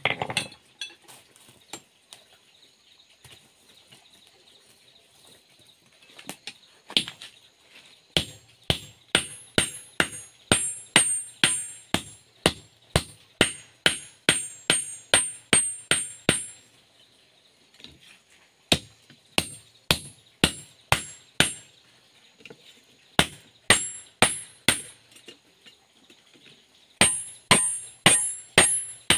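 Hand hammer forging red-hot steel for a spade on a small anvil block. Sharp strikes come about two a second in runs, each with a high metallic ring, broken by short pauses. The strikes begin after several quieter seconds.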